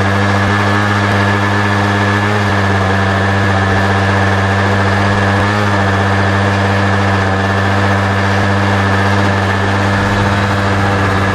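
Model aircraft propeller engine running on a test stand at a steady speed, a loud even buzz whose pitch does not change.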